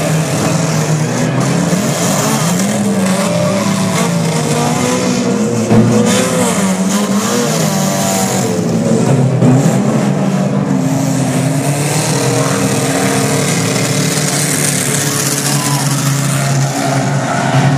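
Several banger racing cars' engines revving and labouring at once, their pitches rising and falling as they shove through a pile-up, with tyres squealing and skidding. A brief loud thump about six seconds in.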